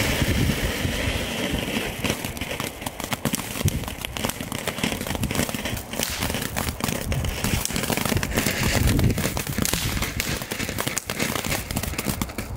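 Small category 1 firework fountain spraying sparks: a steady hiss. From about two seconds in, dense crackling runs through it.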